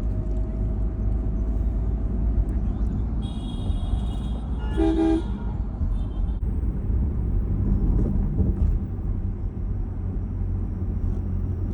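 Steady low road rumble of a moving car, with a vehicle horn sounding twice: a higher-pitched honk about three seconds in, then a stronger, lower honk just after it.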